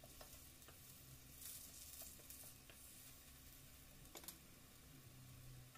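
Faint sizzle of cauliflower and carrot fritters frying in oil in a pan, with a few soft clicks, the sharpest about four seconds in.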